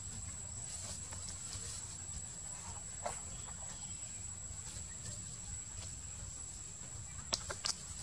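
Outdoor background: a steady low rumble and a thin, steady high-pitched whine, with a faint short sound about three seconds in and a few sharp clicks shortly before the end.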